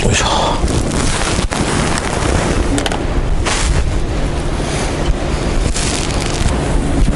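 Wind buffeting the microphone, a steady rumbling noise throughout. At the very start there is a brief splash as a released trout drops into the water.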